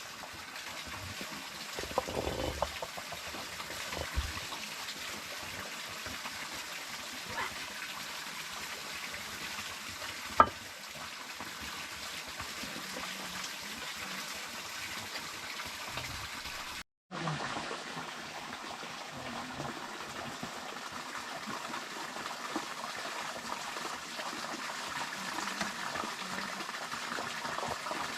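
Steady running water, with a few sharp knocks, the loudest about ten seconds in.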